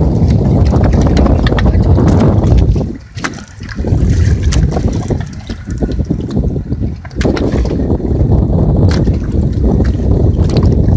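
Wind buffeting the microphone on an open fishing boat at sea, a loud, steady rumble mixed with the wash of water along the hull. The rumble drops away briefly about three seconds in, and again for a moment a few seconds later.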